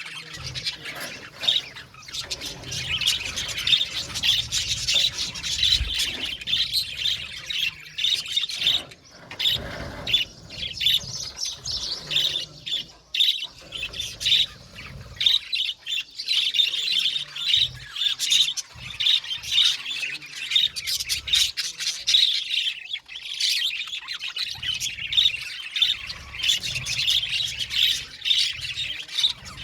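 A flock of budgerigars chattering and chirping in a colony aviary, many birds at once in a dense, continuous warble with short squawks and a few brief lulls.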